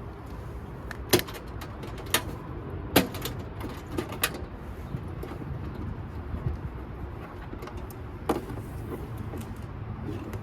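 A handful of sharp clicks and knocks, the loudest about one and three seconds in, over a low steady rumble, like equipment being handled and set down.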